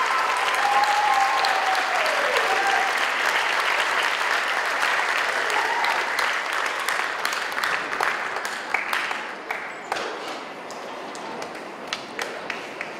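Audience applauding, with a voice whooping in the first few seconds. The applause thins out after about eight seconds into scattered single claps.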